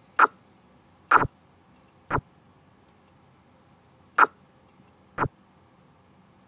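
Five sharp, short clicks, a second or two apart, as chess moves are made on an on-screen board with the mouse.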